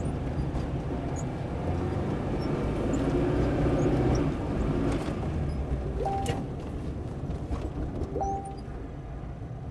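A car driving, with a steady low rumble of engine and road noise that swells about halfway through and then eases off. Two short tones sound near the end.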